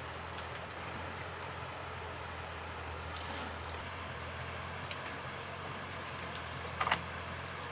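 A steady low hum under a constant hiss, with a faint high chirp about three seconds in and a short sharp knock or splash near the end.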